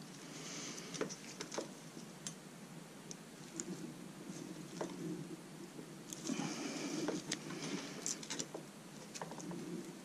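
Faint clicks and rustling of gloved hands handling a 2016 Yamaha YZ85's rear brake caliper, pressing its piston back in by hand. There are scattered light metallic ticks throughout, and a longer soft rubbing stretch a little past the middle.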